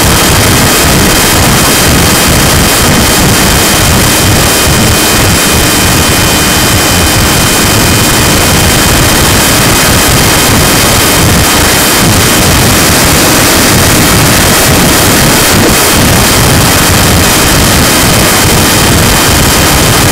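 Fast RC plane's motor whining at a steady high pitch under loud, constant rushing wind noise.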